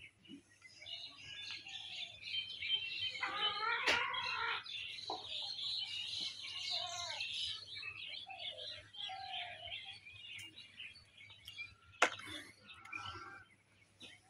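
Birds chirping and calling throughout, with a stronger, lower call about three to four seconds in. Two sharp clicks cut across it, one about four seconds in and a louder one about twelve seconds in.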